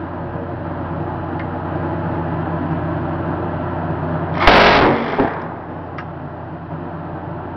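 Mk44 7.62 mm rotary minigun firing one short warning burst, a continuous rip of shots lasting under a second about halfway through. A steady low hum runs underneath.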